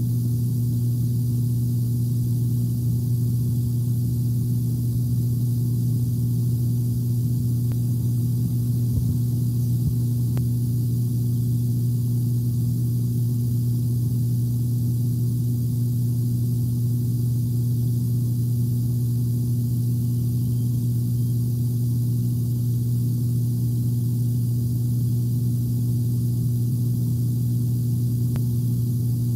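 Steady low hum, unchanging throughout, with a faint hiss above it and a few faint ticks.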